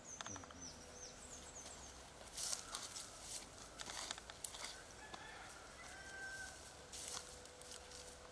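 Faint outdoor ambience of birds calling, with short high chirps in the first second or so. Scuffs and rustles of feet on dry ground and palm fronds, plus a few light clicks.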